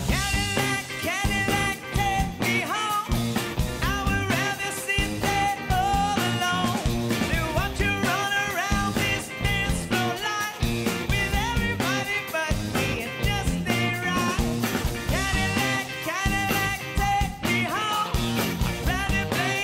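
Rock band playing live with drums and bass on a steady beat, a bouncy pop-rock groove, and a sung or guitar melody over it.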